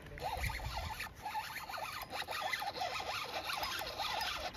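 Shimano FX 1000 spinning reel being cranked to retrieve a frog lure, a continuous run of short scratchy ticks.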